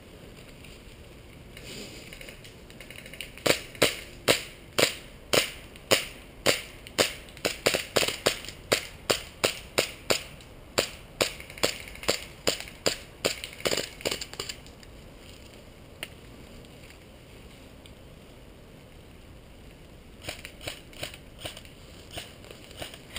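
Airsoft gun firing single shots in a steady string, about two sharp cracks a second for roughly ten seconds, then a few more shots near the end.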